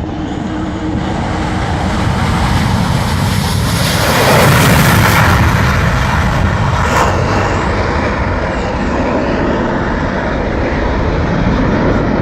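Twin-engine F/A-18 Hornet fighter jet taking off, a loud jet roar that builds and is loudest about four to five seconds in as it passes, then stays loud.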